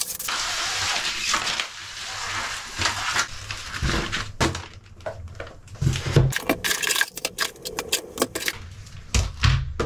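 Unboxing handling noises from fishing-tackle packaging: for about four seconds a dense, steady rustling and scraping, then scattered clicks, taps and crinkles as a cardboard box is opened and plastic lure packs are handled.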